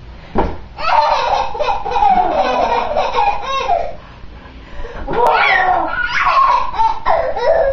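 A young child laughing and squealing in high-pitched bursts, in two long stretches with a short lull in the middle.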